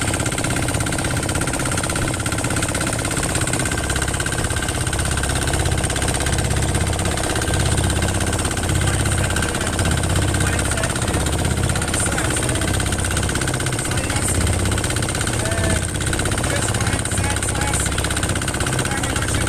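An engine running steadily, with a continuous low rumble and a steady whine.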